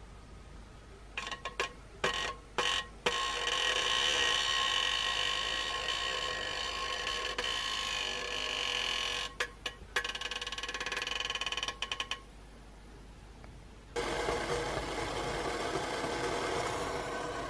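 Water at the boil in a lidded titanium mug over a carbon-felt alcohol stove: a steady hiss with faint high ringing tones, cutting in and out abruptly several times and dropping away for a couple of seconds near the end before returning.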